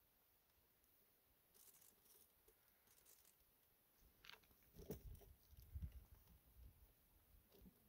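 Near silence, with faint rustles and a few soft low bumps a little past the middle.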